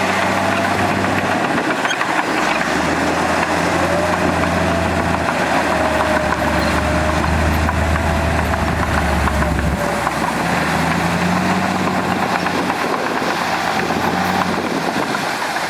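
Heavy earthmoving machinery's diesel engine running steadily under load, its low drone swelling a couple of seconds in and easing off about two-thirds of the way through, with a faint wavering whine above it.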